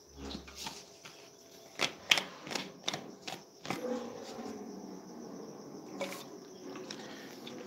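BMW 3 Series convertible's electro-hydraulic folding hard top in operation. A run of sharp clicks comes from the latches and the boot lid as it unlatches, then a steady hum from the pump motor as the roof panels rise out of the boot.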